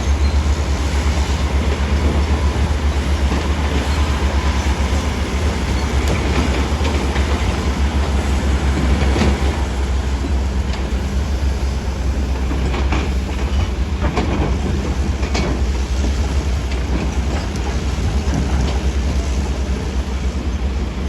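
Heavy earthmoving machinery running steadily, a deep diesel rumble, with scattered metallic clanks and knocks.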